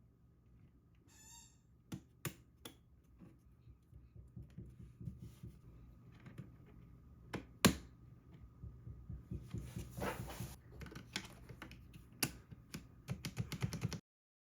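Typing on a Royal Kludge RK84 mechanical keyboard with brown switches. The keystrokes come irregularly, sparse at first, then thicken into a quick run of clicks near the end that stops abruptly.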